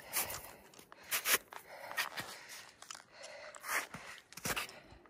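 A hiker's footsteps on a trail: an irregular run of steps.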